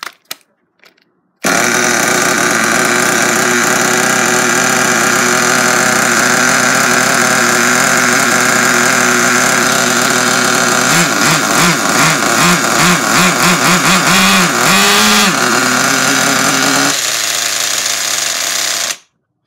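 Small two-stroke nitro RC car engine running loud and steady, surging unevenly for a few seconds in the middle, then cutting off abruptly near the end. It runs with its loose exhaust bolts just tightened to stop an air leak, which the owner finds a little better.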